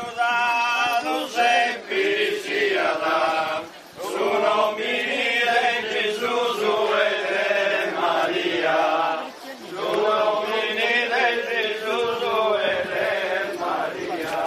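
A group of people singing a slow religious chant as a procession hymn, in long phrases with short breaks about four seconds in and again near ten seconds.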